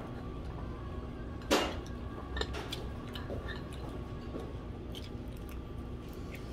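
Small clicks and knocks of chopsticks and dishes at a dining table, with one sharp, louder knock about one and a half seconds in, over a steady room hum.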